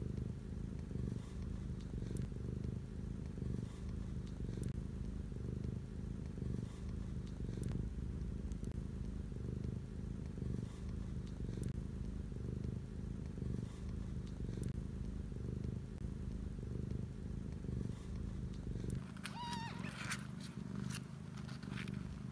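Scottish Fold mother cat purring steadily and closely, a continuous low pulsing rumble, while her newborn kittens nurse. A couple of brief, thin high squeaks come near the end.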